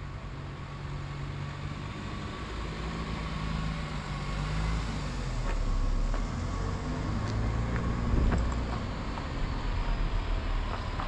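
Cars driving slowly past on a nearby road: engine hum and tyre noise, swelling as each passes, one car after another.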